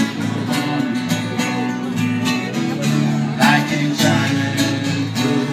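Acoustic band playing live: strummed acoustic guitars with a steady, even beat.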